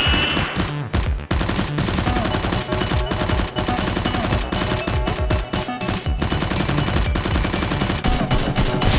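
Rapid, continuous gunfire sound effects in the style of an automatic rifle, many shots a second, added over Nerf blasters firing, with background music underneath.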